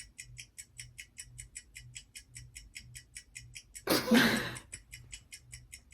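Countdown timer of a song association game ticking fast and evenly, about five ticks a second, with a softer low pulse underneath. About four seconds in comes a short, loud, breathy vocal sound.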